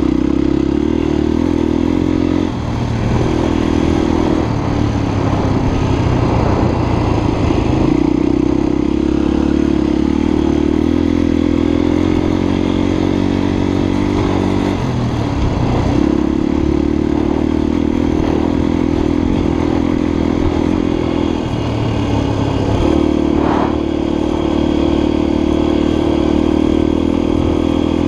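Honda XLR250 enduro motorcycle's single-cylinder four-stroke engine running under way at a steady pace. The engine note drops off briefly four times, then picks up again.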